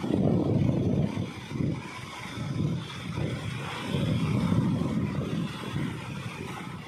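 Waves breaking and washing through the shallows, with gusty wind rumbling on the microphone in irregular swells.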